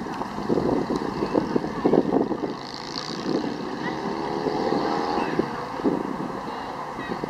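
Wind rumbling on the microphone, with a distant engine drone passing from about three seconds in and rising slightly in pitch.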